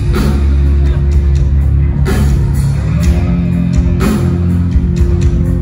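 Gothic rock band playing live, heard loud from among the crowd: distorted electric guitars, bass and drums, with cymbal crashes about every two seconds.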